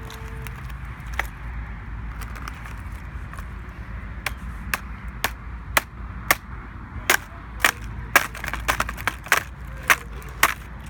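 Repeated sharp blows striking a MacBook as it is smashed apart: a few scattered hits at first, then about two a second and louder from about four seconds in.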